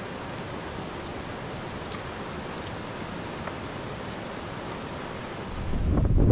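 Steady, even rushing hiss of water, with a few faint ticks in it. Near the end, loud low buffeting of wind on the microphone comes in over it.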